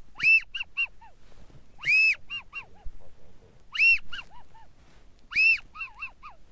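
Goose honking in four sequences about every second and a half, each a loud rising-and-falling honk followed by three or four quicker, shorter notes that drop in pitch.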